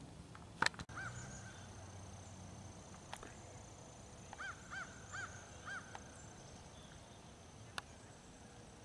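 Geese honking: one call about a second in, then four short, evenly spaced honks around the middle. A sharp click comes just before the first call.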